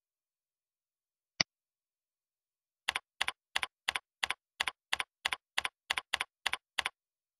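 A single mouse click about a second and a half in, then a computer keyboard typing: about a dozen evenly paced keystrokes, roughly three a second, as a name is entered into a text field.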